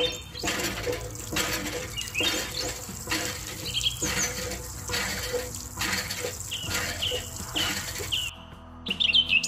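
Water splashing in irregular spurts from a miniature model hand pump into a small metal bucket as the pump handle is worked. Short bird chirps sound a few times over it.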